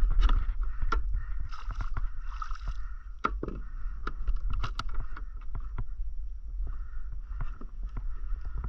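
Irregular knocks and clicks of fishing gear being handled against a plastic kayak's deck and hull, over a steady low rumble, with most of the knocks near the start.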